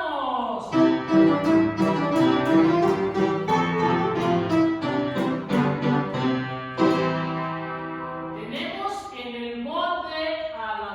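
Piano playing a chordal introduction to a children's song. A woman's singing voice comes in near the end.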